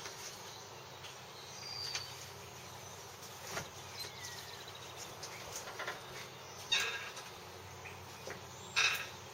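Outdoor ambience with birds chirping and calling. Two louder calls come in the second half, about two seconds apart.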